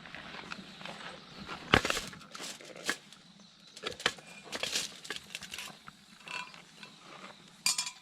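Irregular clicks, knocks and light metallic clinks of small objects being handled, the loudest knocks nearly two seconds in and near the end.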